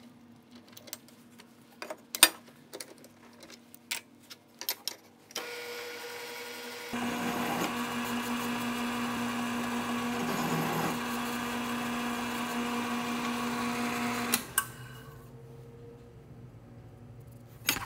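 Benchtop milling machine spindle starts about five seconds in and runs steadily with a single-flute chamfer bit chamfering a drilled hole in a steel block, then shuts off about fourteen seconds in. Light clicks of metal parts being handled come before and after.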